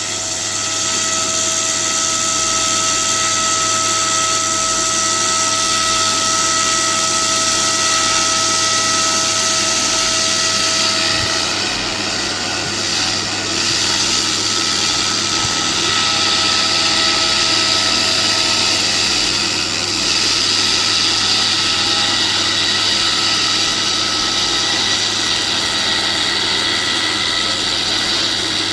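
Shark 120 pulsed laser cleaner ablating rust off steel: a loud, steady hiss with a constant hum and a few held tones. The sound dips briefly about twelve seconds in and again near twenty seconds.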